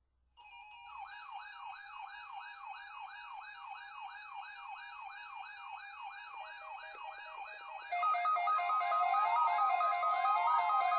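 Electronic siren sounding a fast yelp, about three quick rising-and-falling sweeps a second. About eight seconds in it gets louder, as a slower up-and-down siren tone and steady tones join in.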